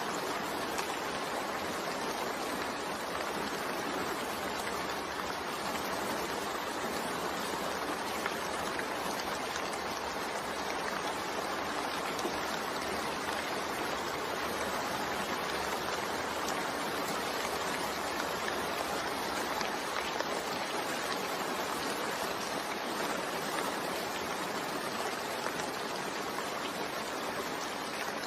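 Steady rain mixed with white noise: an even, unbroken hiss with no single drops or events standing out.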